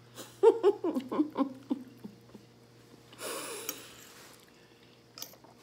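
A woman eating, making short muffled voiced sounds through a mouthful of food, then a long breathy exhale about three seconds in; a few light mouth or cutlery clicks near the end.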